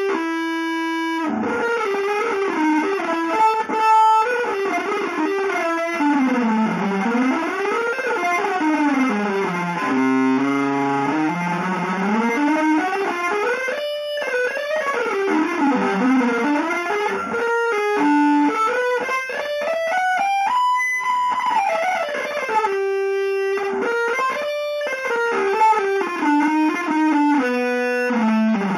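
Electric guitar playing a free improvisation without a melody: mostly one note at a time, in fast runs that sweep up and down in pitch, with a few brief stops.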